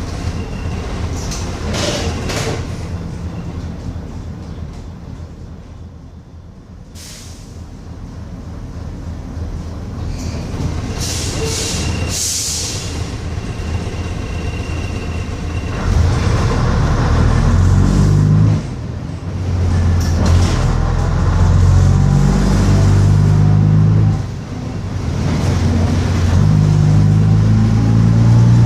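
Bristol RELL6L single-deck bus's diesel engine, with short air hisses from the brakes while it runs slowly. About sixteen seconds in it pulls away hard, the engine note climbing and breaking off twice for gear changes.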